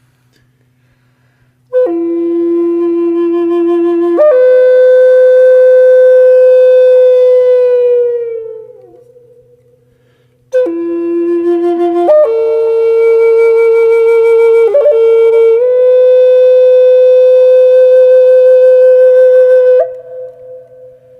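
Background music: a slow flute melody of long held notes in two phrases. The first fades out about eight seconds in, and the second enters a couple of seconds later.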